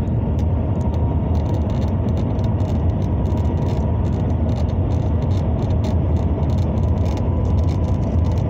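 Steady low rumble inside the cabin of the Shanghai Maglev (Transrapid) train travelling at high speed, about 270 km/h, with a faint steady high tone and light high crackle over it.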